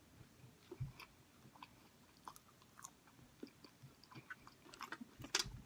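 Faint chewing close to the microphone: soft, irregular mouth clicks and ticks, a little busier near the end.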